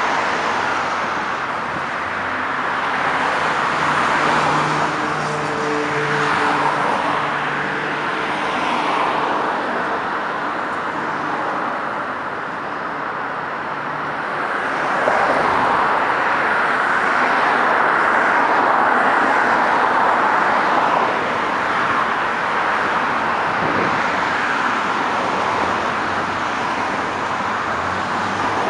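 Steady expressway traffic: tyre and engine noise of cars and trucks passing. For roughly the first ten seconds a tanker semi-truck's diesel engine hum stands out with steady low tones, and the traffic gets louder a little past the middle.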